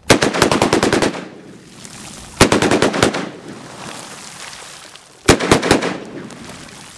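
AR-15 pistol fired in three quick strings of shots: about ten in the first second, about six some two seconds later, and three or four near the end. Each string is followed by a rolling echo.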